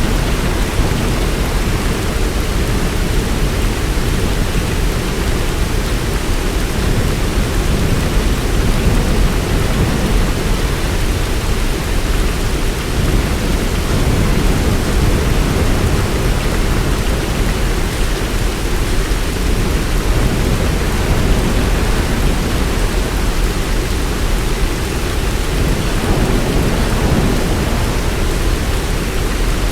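Heavy rain pouring steadily, with a low rumble underneath.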